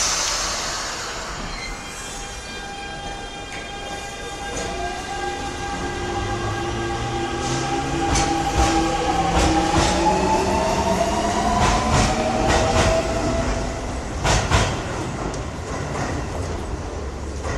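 Metro train pulling away: a loud hiss of air at the start, then the electric traction motors whine with several tones rising in pitch as the train gathers speed. Wheel clacks over rail joints come in from about halfway and repeat over a low rumble.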